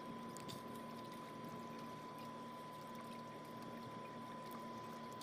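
Water trickling and dripping off a wet fishing net as it is hauled in by hand over the side of a small boat, with a faint steady high tone underneath.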